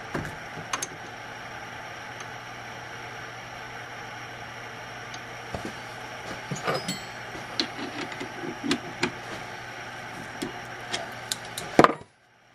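Steady workshop hum with scattered light clicks and knocks of a wooden pen blank and tools being handled, busiest in the middle. Near the end comes a sharp knock, then the sound cuts off abruptly.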